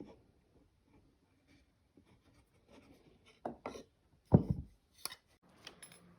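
Wooden pieces handled on a workbench: light rubbing and scraping with a few taps, then one loud knock a little past the middle.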